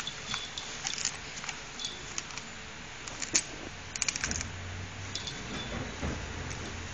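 Dachshund gnawing and tearing at a coconut husk with its teeth: irregular sharp clicks and scrapes, with a quick rattle of clicks about four seconds in.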